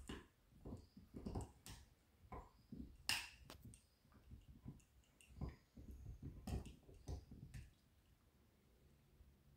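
A beagle gnawing on a dog chew: irregular soft crunches and clicks of teeth on the chew, with one sharper crack about three seconds in, stopping shortly before the end.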